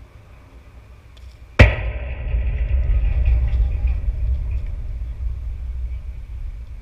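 A baseball striking the backstop fence near the microphone: one sharp bang about one and a half seconds in, followed by a loud low rumble from the shaken fence that fades over about four seconds.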